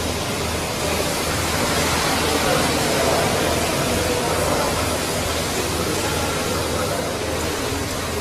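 Steady machine noise: an even hiss over a low, slightly pulsing hum.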